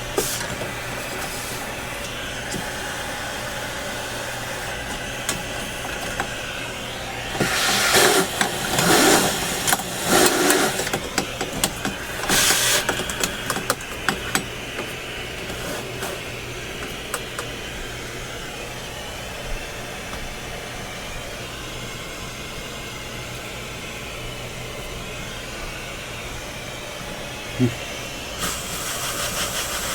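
Motorised shop cleaning equipment running steadily with a low hum while dust is cleaned off an old tube radio chassis, with louder rushes of air about 8 to 13 seconds in and again near the end.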